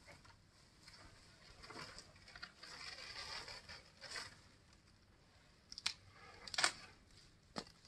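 An African elephant browsing in a tree: leaves and branches rustle and scrape, then twigs snap three times in sharp cracks, the second the loudest.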